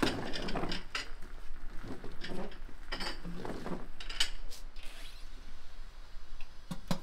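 Dishes and cutlery being set on a table: a scatter of light knocks and clinks that thins out after about five seconds, with one sharp click near the end.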